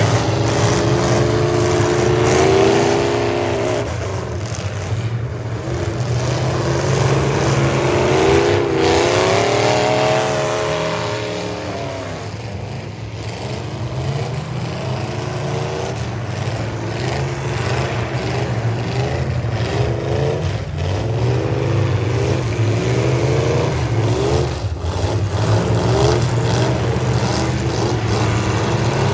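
Engines of several demolition derby pickup trucks running and revving hard, their pitch rising and falling again and again over a steady low drone, with a few sharp knocks.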